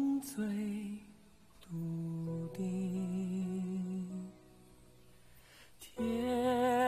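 A slow Mandarin pop ballad: a singer holds long notes with vibrato over soft instrumental backing, with two short quiet pauses between phrases.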